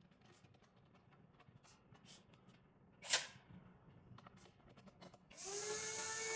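Small handling clicks, a sharp click about three seconds in, then an electric screwdriver whirring for just over a second near the end, driving the screw that fixes the lock cylinder to the lock body.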